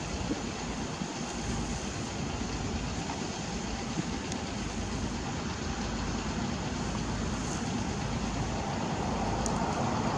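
Heavy engines idling steadily, a continuous low running noise with no change in speed, with a couple of faint metallic ticks.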